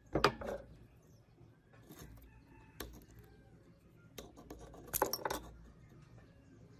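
Small metal clicks and clinks of pliers and the parts of a toy motorcycle model being worked apart over a steel plate. There are a few sharp taps at the start, single ones about three and four seconds in, and a quick cluster about five seconds in.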